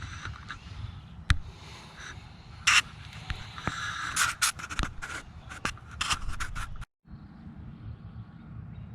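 Metal clicks and scrapes of a 4 mm Allen key working fairing bolts loose on a motorcycle.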